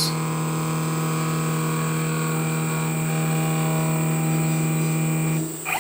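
CNC milling machine's axis motors feeding the table slowly during a Mach3 probing move, the homemade contact probe travelling toward the wall of a bearing's inner race: a steady hum with several even tones that cuts off near the end as the move stops.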